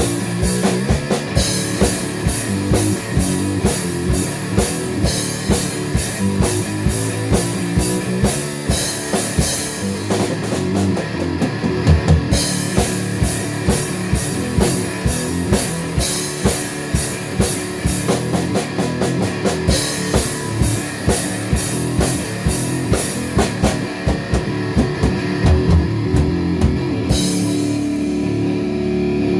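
Rock song: a drum kit drives a steady fast beat under guitar and bass. Near the end the drums drop out, leaving the guitar ringing.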